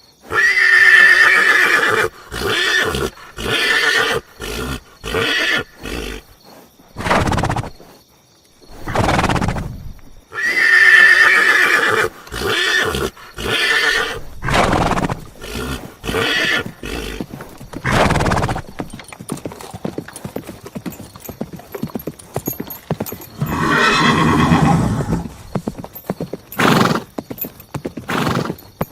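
Horse whinnying twice, a long shaking neigh at the start and again about ten seconds later, with hooves clopping in short sharp knocks in between.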